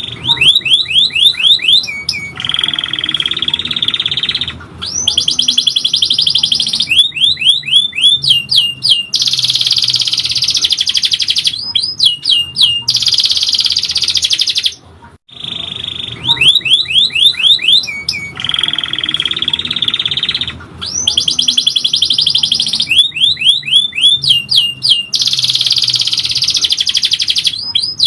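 Domestic canary singing a long song: fast trills of rising chirps alternating with buzzing rolls held for a second or two. The same sequence of phrases comes round again about fifteen seconds in.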